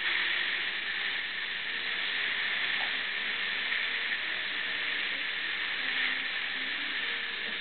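Dental equipment hissing steadily during a Waterlase laser gum procedure: suction and the laser handpiece's air-water spray.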